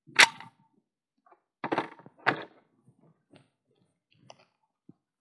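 Handling noise from a magazine-fed 12-gauge Husan shotgun: a sharp metallic click just after the start, then two knocks as the gun is laid down on a folding table, followed by a few faint small clicks.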